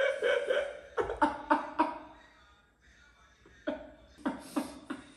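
A man laughing in three short bouts of quick, repeated pulses, one at the start, one about a second in and one near the end.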